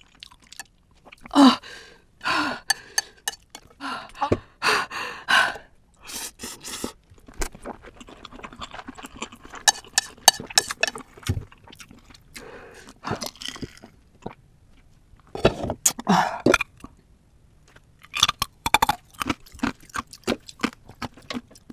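Close-miked mouth sounds of eating very spicy food: wet chewing clicks and slurps, broken by sharp gasping breaths from the heat.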